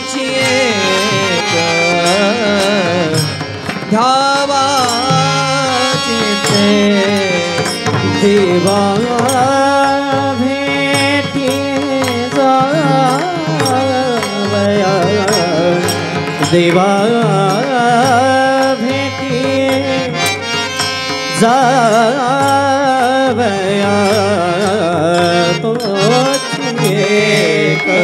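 Men singing a Marathi kirtan chal, a devotional melody with long, gliding held notes, while small brass hand cymbals (taal) clash in a steady rhythm.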